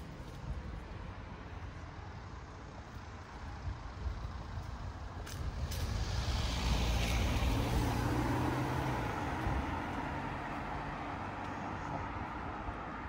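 A heavy road vehicle's engine passing close by in street traffic: it grows louder to a peak about halfway through, with a brief hiss near the peak, then fades away.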